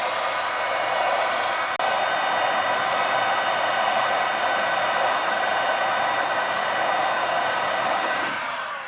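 Heat gun running, a steady fan whine with rushing air, heating a chainsaw crankcase half up to temperature for fitting the crankshaft bearing. It cuts out for an instant about two seconds in, and near the end it is switched off and winds down with a falling whine.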